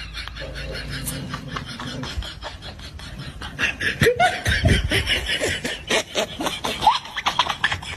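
A person laughing in quick breathy bursts, with clicks and rustling.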